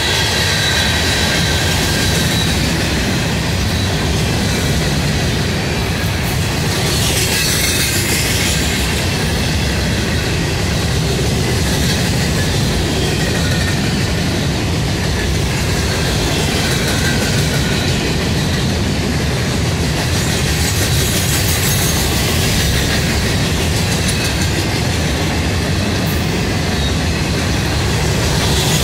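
Freight train of mostly empty open-top rock hopper cars rolling past, its steel wheels on the rails making a steady, loud rumble.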